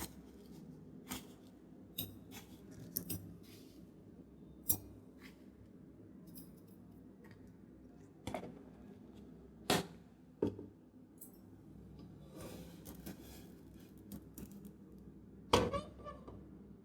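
Metal kitchen vessels and utensils clinking and knocking against each other, about ten sharp, irregular strikes with the loudest a few seconds before the end, plus a short stretch of scraping noise.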